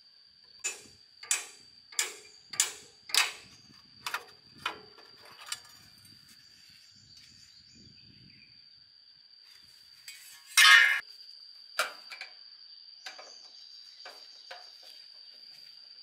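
Hand work on the sheet-metal casing and parts of an old Fujitsu outdoor air-conditioner unit being dismantled. There is a regular run of about eight sharp clicks, roughly one and a half a second, over the first five seconds. About ten and a half seconds in comes a louder, short clatter of metal, followed by a few scattered clicks. A steady high insect drone runs underneath throughout.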